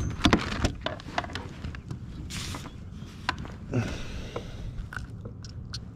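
Close handling noise of a spinning rod and reel and a jacket sleeve brushing the microphone: a cluster of louder clicks and knocks at the start, then scattered small clicks and two short swishing rustles.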